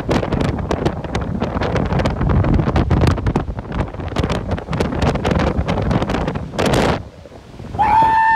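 Strong storm wind and rain buffeting the microphone on a chase vehicle, with many sharp taps and gusts. The wind noise drops off suddenly about seven seconds in, and a short held tone starts just before the end.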